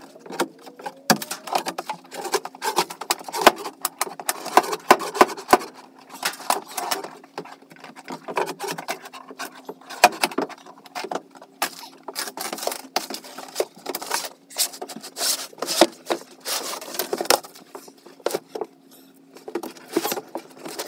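Irregular knocks, scrapes and thuds of old wooden floor boards being pried up and dragged off a school bus's steel floor, with a faint steady hum underneath.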